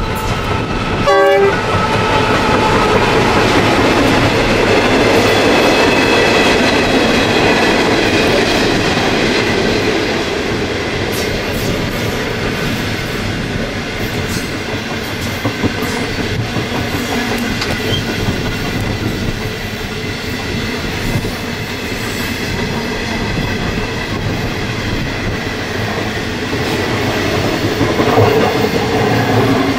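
Two NR class diesel-electric locomotives passing close by, then a long train of stainless-steel passenger carriages rolling past with steady wheel-on-rail noise. Loudest in the first several seconds as the locomotives go by.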